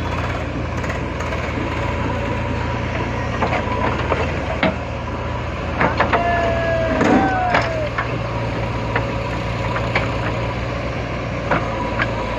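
Heavy vehicle engine running steadily, with scattered sharp knocks and clanks and a short falling squeak about seven seconds in.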